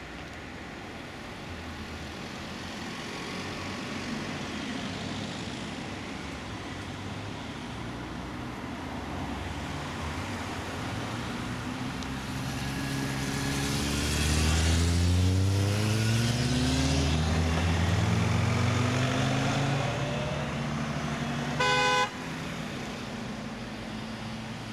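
Road traffic: a car's engine rises in pitch as it accelerates past, picking up again after a gear change. A single short car-horn toot sounds near the end.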